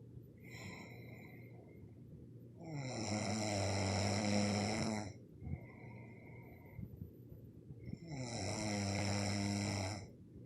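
Snoring: two long, loud snores about five seconds apart, with quieter breaths between them.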